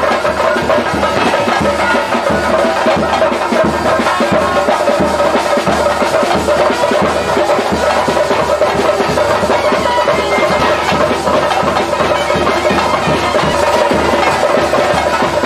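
Traditional ritual music: a reed pipe playing a continuous line over steady drum beats.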